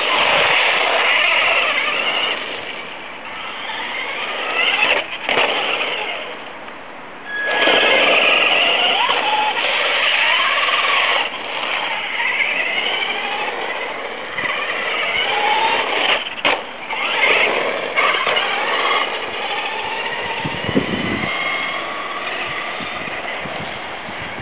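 Traxxas Stampede electric RC monster truck driving hard, its brushed motor and gears whining up and down in pitch with the throttle. The whine drops away briefly about six to seven seconds in, then returns loud.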